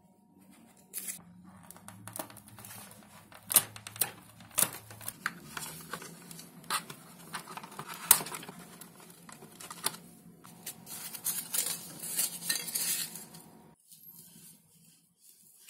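Hands working 5 mm XPS foam board: a run of sharp clicks and taps with scratchy crackling, densest a few seconds before the end, then quieter handling.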